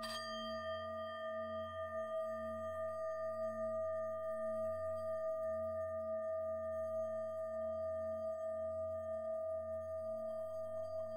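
Singing bowl ringing with a long, sustained tone, struck again right at the start, its low hum pulsing in a slow, even wobble.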